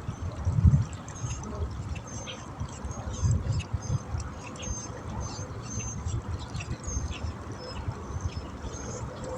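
Waterside ambience: water lapping and dribbling, with irregular low thumps, and small birds chirping in short, high, repeated notes in the background.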